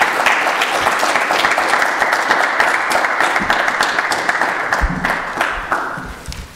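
Small audience applauding, a dense patter of hand claps that thins out and dies away near the end.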